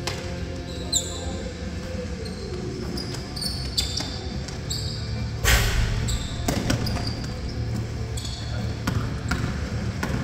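Basketball game on a hardwood gym floor: the ball bouncing, short high sneaker squeaks and a loud bang about five and a half seconds in as the shot goes up at the basket. Players' voices echo in the hall.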